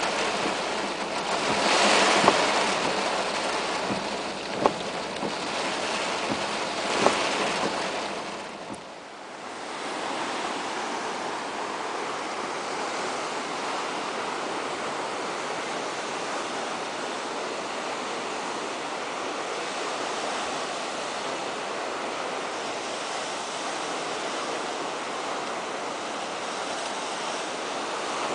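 Heavy rain falling on a car's windshield and roof, heard from inside the car, with three sharp taps. About nine seconds in it cuts to a steady rush of surf breaking on a beach, mixed with wind.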